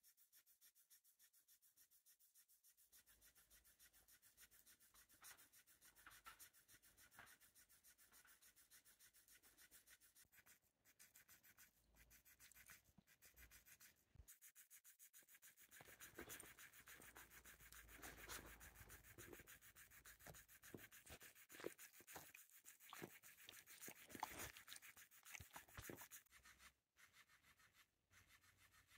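Faint, rapidly repeating brushing and rubbing of motorised flopping fish toys, their tails flapping against a blanket and a dog's fur. It grows louder about halfway through.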